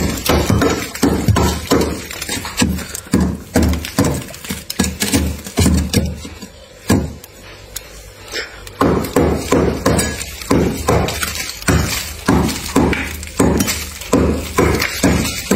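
A broad cleaver-style kitchen knife chopping and scraping into thick frost on a freezer's walls, hitting about twice a second with crunching and clinking of chipped ice. The strokes stop for about two seconds midway, then carry on.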